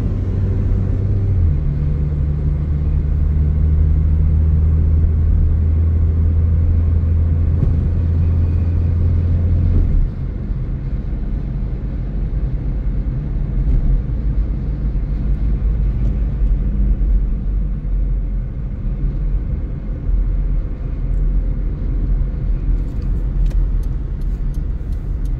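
Engine and road noise inside a car driving on a city road, a steady low drone that drops abruptly in level about ten seconds in and carries on as a low rumble. Near the end comes a fast, regular ticking.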